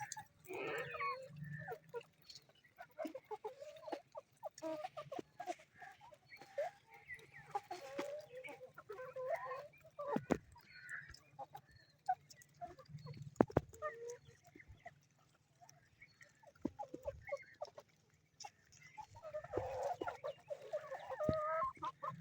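Domestic hens clucking softly and intermittently, with now and then a sharp tap among them.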